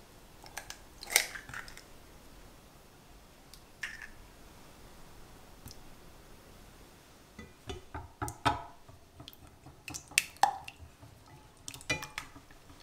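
A hen's egg cracked and pulled open over a ceramic saucepan, with a sharp crack about a second in. Later, a wire whisk beats the eggs and clicks against the sides of the pot in a run of irregular taps in the second half.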